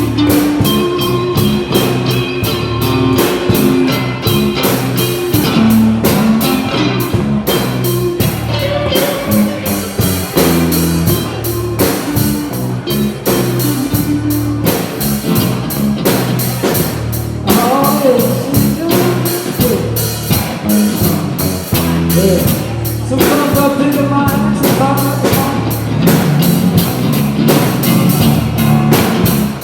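Blues-rock band music: electric guitar over a drum kit with a steady beat, with bending guitar notes about two-thirds of the way in.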